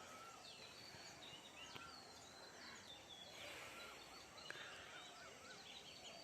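Faint birdsong: several small birds chirping and calling in short, slurred notes over a quiet rural background, with a quick wavering run of notes about four seconds in.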